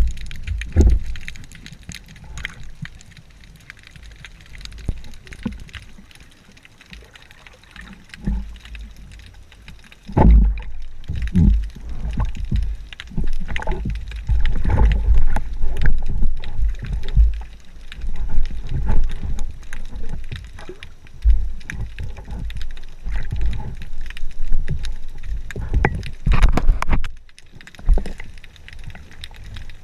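Muffled water sloshing and gurgling around a GoPro camera in its waterproof housing, with irregular surges and short knocks; the movement is busiest over the second half.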